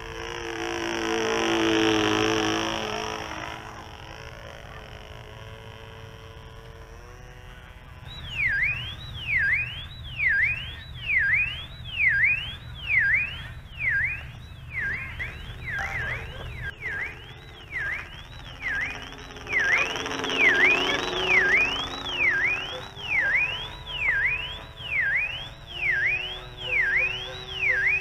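PAW 1cc diesel engine of a model airplane buzzing in flight, swelling loud as the plane passes close about two seconds in and again around twenty seconds in. From about eight seconds a car alarm warbles alongside it, sweeping down and up about once a second.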